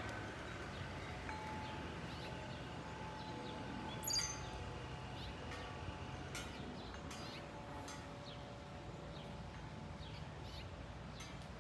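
Wind chimes ringing softly, long held tones with scattered lighter strikes, with birds chirping now and then and a brief louder chirp about four seconds in, over a faint low background rumble.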